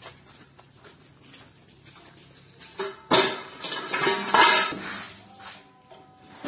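A bundle of hollow fence-pole pipes dropped onto a pile of poles on a concrete floor, clattering and ringing for about a second and a half, starting about three seconds in.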